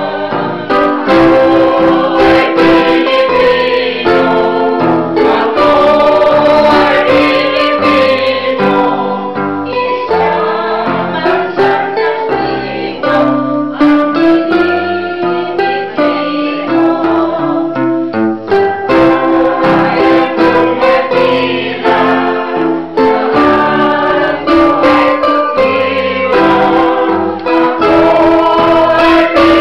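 Small group of women singing together in chorus from sheet music, accompanied by an electronic keyboard.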